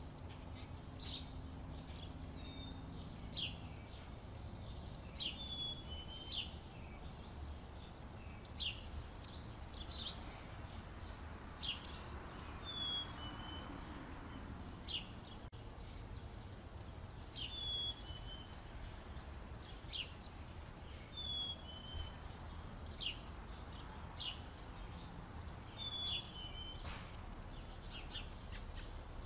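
Small birds calling repeatedly: short sharp chips about every one to two seconds, with brief high down-slurred notes in between.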